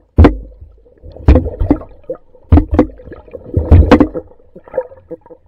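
Catfish swarming an underwater camera, heard through the water: loud, irregular thumps and knocks as the fish bump against it, with low water rumble and gurgling between them.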